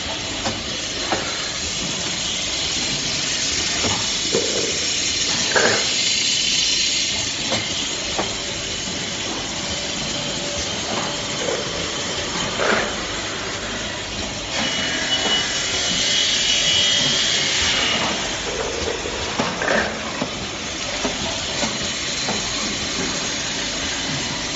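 Horizontal cup popcorn filling and sealing machine running: a steady high hiss with sharp clacks from its mechanism every one to three seconds.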